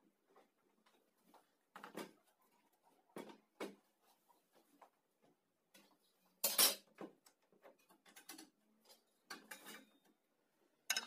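Irregular knocks and clatter of tools being handled on a board worktop: a steel square and a circular saw on its metal base plate set down and moved about. The loudest knock comes about six and a half seconds in, with another sharp one near the end.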